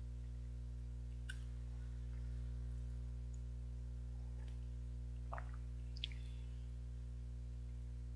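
A few faint sips and slurps of hot coffee from a mug, with a short click about six seconds in, over a steady low hum.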